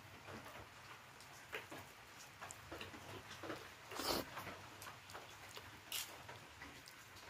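Close-up eating sounds: faint chewing and small wet mouth clicks and smacks while eating khichdi, with a louder smack about four seconds in and another about six seconds in.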